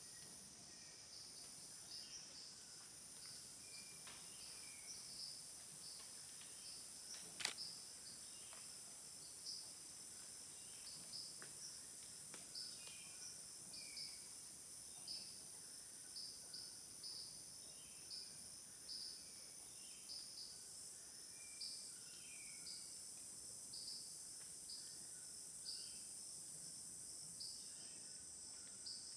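Faint tropical forest insect chorus: a steady high buzzing with short chirps repeating about once a second, and occasional faint bird-like notes. A single sharp click sounds about seven seconds in.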